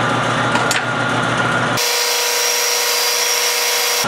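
Metal lathe running as a parting tool is fed into a spinning threaded bolt to cut it off. A little under two seconds in, the sound changes abruptly from the motor's steady hum to a hissy cutting noise with a few steady tones.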